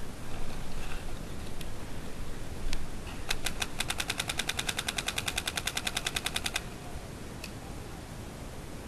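Planet Eclipse Geo 2.1 paintball marker firing a rapid string of shots, about eleven a second for roughly three seconds, with a few single shots before and after.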